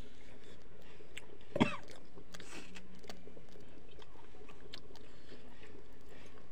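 A person chewing mouthfuls of rice and fish curry eaten by hand, with small wet mouth and finger clicks and one sharp, louder smack about a second and a half in.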